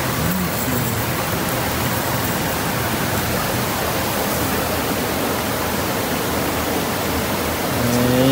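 Steady rush of stream water.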